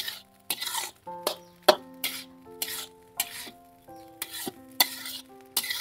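Metal spatula scraping and tossing fried rice in a black steel wok, about two strokes a second, with the rice sizzling on the heat.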